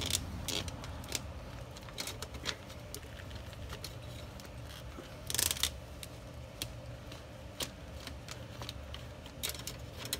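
Scattered small clicks and scrapes of a liquid-tight conduit fitting being unscrewed by hand from a pool pump motor, with one louder rasp about five seconds in. A steady low hum runs underneath.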